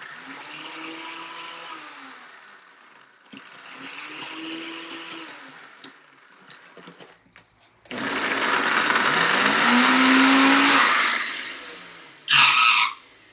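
VAVA countertop blender crushing ice: the motor runs in two short pulses, each winding up and down, then a longer, louder run. Near the end comes a brief loud rasp as the jar is handled.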